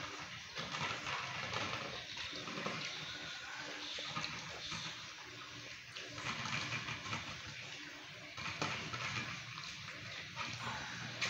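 A Belgian Malinois puppy eating dry kibble from a stainless steel bowl: steady crunching and chewing, with kibble clicking and rattling against the metal bowl.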